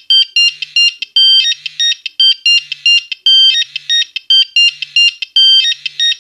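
Nokia 1101 mobile phone playing a monophonic ringtone: a quick, repeating melody of short, bright electronic beeps with a few longer held notes.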